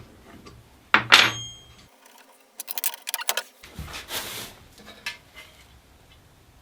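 Small metal parts and a hand tool clinking against metal: one sharp clink that rings briefly about a second in, then a quick rattle of small clicks and a short scrape.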